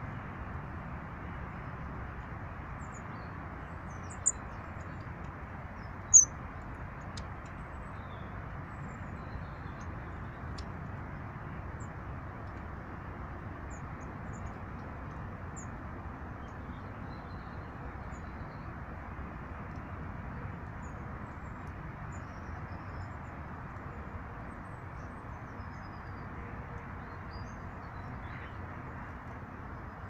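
Small birds giving short, high chirps: two sharp ones about four and six seconds in, and fainter ones scattered throughout, over a steady low rushing background.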